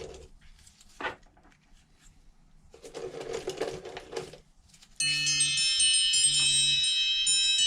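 Two sharp clicks and a brief scraping rustle of handling, then, about five seconds in, music with bright chime-like bell tones starts suddenly and is the loudest sound.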